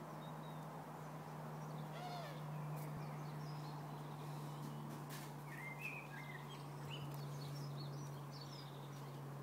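Faint outdoor background noise with a steady low hum and a few brief, high, curving chirps scattered through it.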